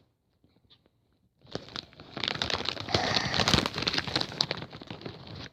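A foil Takis chip bag crinkling as it is handled: a dense run of crackles starting about a second and a half in and stopping abruptly.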